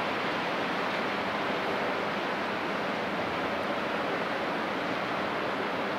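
Steady rushing hiss of water from a passing container ship's bow wave and wake.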